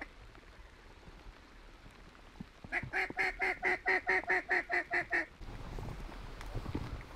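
Duck call blown in a steady string of about a dozen quacks, some five a second, starting a little under three seconds in and stopping about two seconds later, to bring in circling ducks. A low rumble of wind follows.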